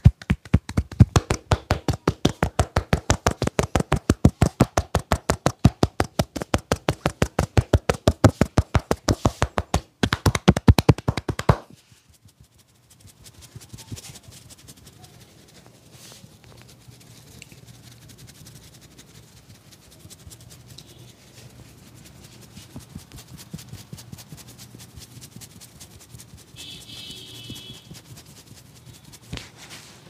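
Rapid, even tapping of hands on a man's head during an Indian head massage, about eight taps a second, stopping suddenly about eleven seconds in. After that only faint rubbing is heard as the fingers work around the ear.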